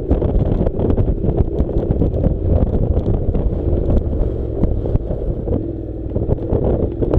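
Honda NC700 motorcycle riding on a dirt track, its 670 cc parallel-twin engine running steadily under heavy wind noise on the microphone, with scattered knocks from the rough surface.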